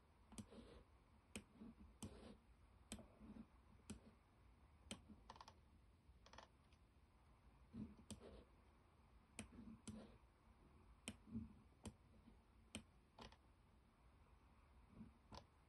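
Faint, sharp clicks from computer controls operated by hand, unevenly spaced at roughly one a second, each with a soft low thud.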